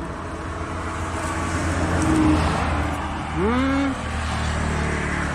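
A motor vehicle going by on the road, its engine hum and road noise swelling to a peak about two seconds in and then easing off. A brief voice sound cuts in at around three and a half seconds.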